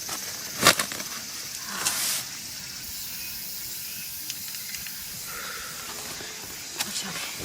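Steady high-pitched insect chorus from the summer forest, with a sharp knock under a second in, a short rustle about two seconds in, and a few light clicks near the end from camp gear being handled.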